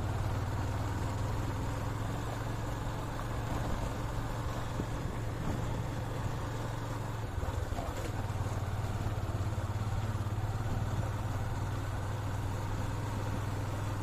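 Motorcycle engine running steadily with wind and road noise, heard from the moving bike: a constant low engine note that holds at one speed.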